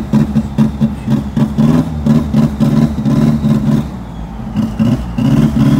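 Isuzu D-MAX 1.9 turbodiesel pickup engine pulling under load, its note pulsing on and off about four times a second, dipping briefly, then running steadier near the end. It is stuttering (hesitating) under power, a fault the crew says the truck still has.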